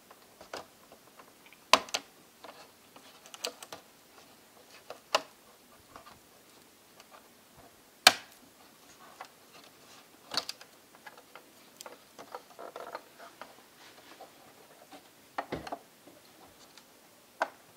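Irregular clicks and light taps of a small screwdriver, screws and plastic laptop parts being handled on an open laptop case. The sharpest clicks come about two seconds and eight seconds in.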